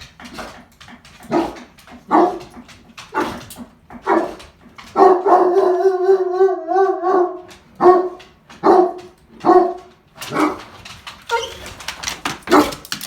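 A dog baying: a run of short, pitched barks about one a second, broken by one long wavering bay about five seconds in that lasts a couple of seconds.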